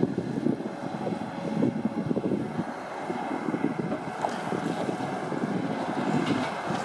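Timberpro TF840B forwarder's diesel engine and crane hydraulics running as the grapple swings and lowers a bundle of long logs into the bunk, with wind buffeting the microphone. A few light knocks come in the second half as the logs are set down.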